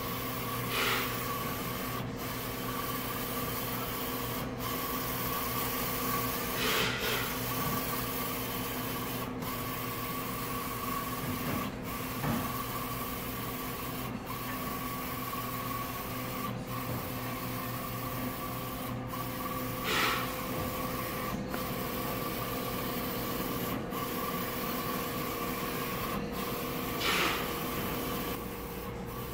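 Roland Soljet Pro III XC-540 54-inch eco-solvent inkjet printer/cutter printing: a steady mechanical whir and hum with a short break about every two and a half seconds, as the print head makes its passes. A few louder swells come through now and then.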